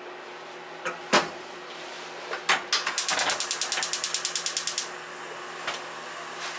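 A ceramic clay pot set down on a gas hob's grate with a couple of knocks about a second in. Then the gas burner's igniter ticks rapidly, about ten clicks a second for nearly two seconds, as the burner is lit.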